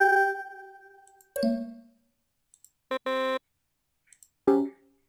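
Four short software alert sounds previewed one after another with mouse clicks. There is a ringing chime that fades over about a second, a lower chime about 1.4 s in, a short buzzy double tone about 3 s in, and another brief chime near the end. These are the alerts that sound when a loan is blocked at a library circulation desk.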